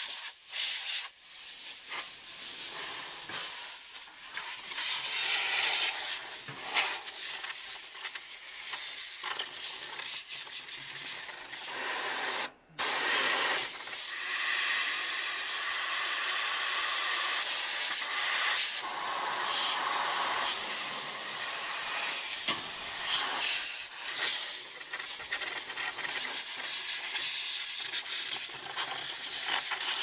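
Compressed-air blow gun hissing as it blows dust out of a microwave oven's vent holes. The hiss swells and dips as the nozzle moves from hole to hole and cuts off briefly about halfway through.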